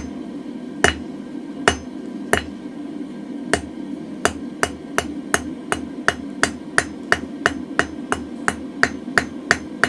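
Hand hammer striking hot mild steel on an anvil while forging a round drift: a few spaced blows, then from about three and a half seconds in a steady run of about two to three ringing blows a second. A steady hum runs underneath.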